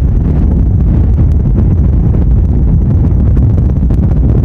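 Strong wind buffeting the microphone in a loud, steady low rumble, over the rough sea surging against the sea wall.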